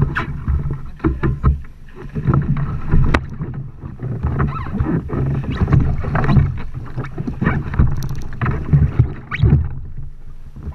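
Water splashing and sloshing against the hulls of two sea kayaks held side by side, with irregular sharp knocks and splashes over a low rumble.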